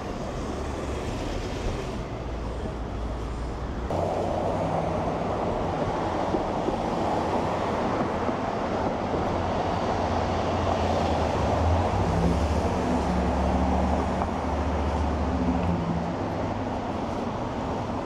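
Street traffic: engines of slow-moving vehicles running close by over a steady street noise, getting louder about four seconds in.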